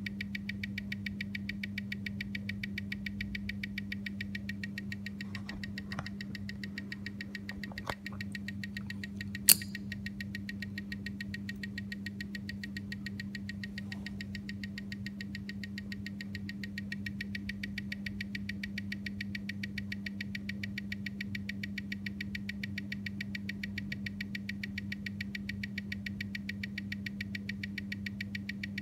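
Omega calibre 8500 watch movement ticking fast and evenly at 25,200 beats per hour, seven ticks a second, as picked up by a timegrapher, over a steady low hum; the watch is running well, within about two seconds a day. A few light clicks come about six and eight seconds in, and one sharp knock, the loudest sound, about nine and a half seconds in.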